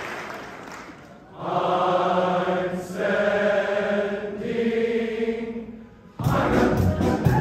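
Applause dying away, then a men's chorus singing three long held chords in a slow, chant-like phrase. About six seconds in, a sudden loud burst of band music and cheering.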